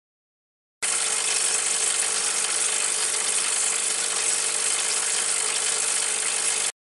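Bezzera Unica espresso machine pumping water through its group head and flow control device in a thin stream, a steady hissing buzz. It starts abruptly about a second in and cuts off sharply near the end.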